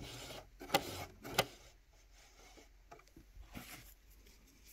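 Singer Heavy Duty sewing machine's mechanism clicking as its handwheel is turned slowly by hand to lower the needle and catch the bobbin thread. Two sharp clicks under a second apart, then a few fainter ticks.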